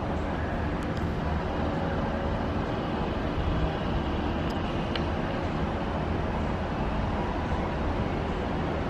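Steady wash of distant road traffic, an even noisy rumble heaviest in the low end, with a couple of faint clicks about one and five seconds in.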